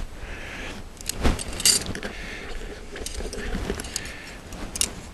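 Light metallic clinks and rattles of the Arrow antenna's aluminium arrow-shaft 2-metre elements knocking together as they are handled and lifted out of a fabric bag, with the bag rustling. The clinks come irregularly, a handful of separate ones.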